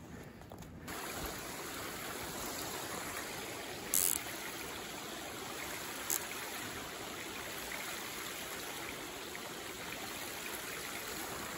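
Steady rush of running water, like a small stream or trickle, setting in abruptly just under a second in, with two brief high ticks about four and six seconds in.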